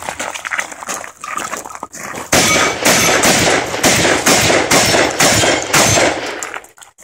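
A shotgun fires a rapid string of shots, about two a second for roughly four seconds, starting about two seconds in. Before that, footsteps crunch on gravel.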